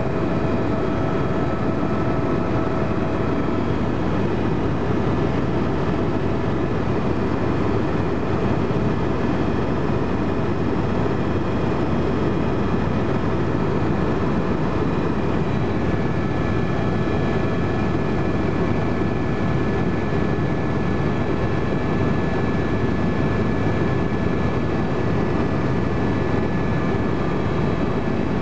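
Tour helicopter's engine and rotor noise heard from inside the cabin: a steady drone with a few faint, steady whining tones above it.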